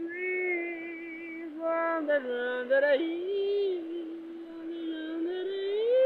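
A man singing a wordless tune: long held notes joined by pitch slides, with a few short breaks.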